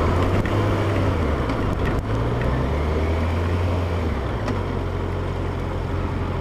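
Yamaha FZ8 motorcycle's inline-four engine running steadily under wind and road noise on the mic. The engine note eases down a little about four and a half seconds in.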